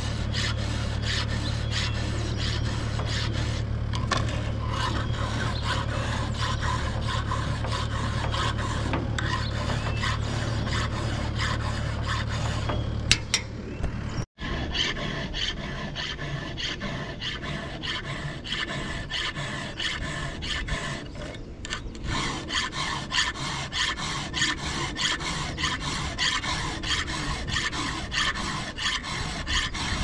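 Continuous rasping and scraping on wood in many quick strokes. A low steady hum underneath stops abruptly about halfway through.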